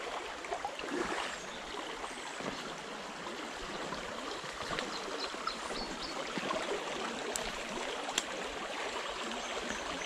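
Small shallow stream running over a gravel and stone bed, a steady rushing and trickling water noise. Two sharp clicks about a second apart come near the end.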